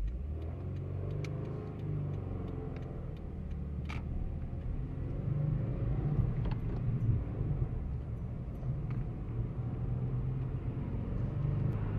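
2015 Subaru WRX's turbocharged flat-four engine running while driving, heard from inside the cabin, its pitch drifting up and down, with a few faint clicks.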